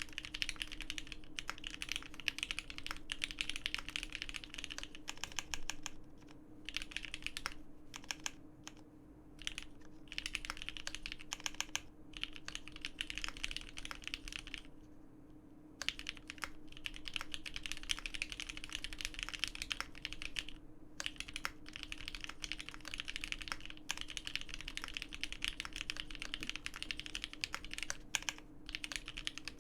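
Continuous fast typing on a mechanical keyboard with lubed vintage Cherry MX Black linear switches on 69 g springs, an FR4 gasket-mounted plate and SA-profile keycaps: dense runs of keystrokes broken by a few short pauses, the longest about 15 seconds in.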